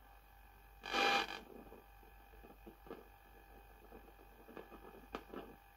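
Crackling and scratching noise from an 80s Hitachi CPT0652 TV boombox's speaker, with one loud burst about a second in and scattered short crackles after it. The owner puts the noise largely down to dirty potentiometers that need switch cleaner.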